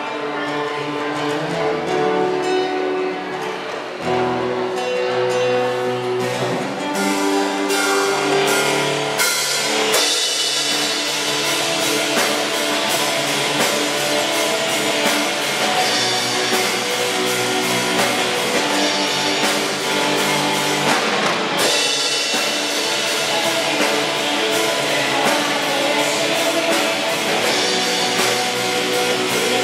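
Live rock band playing on acoustic guitar, electric guitar and bass guitar, with a drum kit. The opening is carried by the guitars with held notes; about nine seconds in, drums and cymbals join and the full band plays on.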